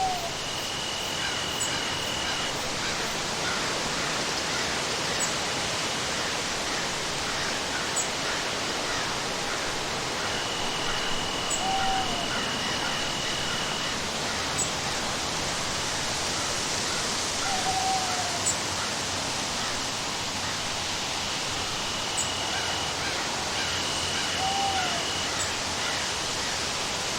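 Stormy forest ambience: a steady hiss of rain, with a short falling bird call heard four times and a thin, steady high tone that comes and goes.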